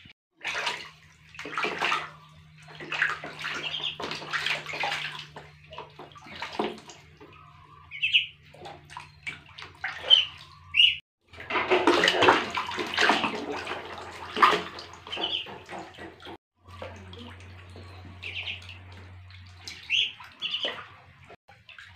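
Water splashing and sloshing in a plastic tub as a baby monkey swims among two ducklings, in irregular bursts, with a few short high peeps now and then.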